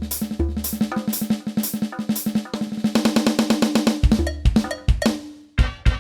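Yamaha DTX700K electronic drum kit played in fast rolls and fills, dense rapid strokes over a pitched drum voice, with a long low bass drum boom at the start and again about four seconds in.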